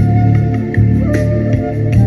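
Instrumental music: a held melody line over a pulsing bass beat.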